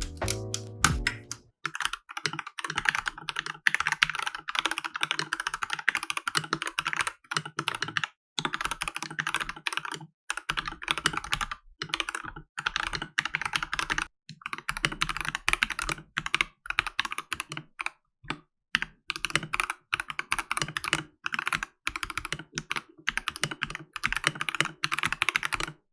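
Typing on an Akko 3068B 65% mechanical keyboard with unlubed Akko Jelly Black linear switches, in fast runs of keystrokes broken by short pauses. It is stock with the default foam at first; about eleven seconds in it switches to the board with a vinyl foam mod.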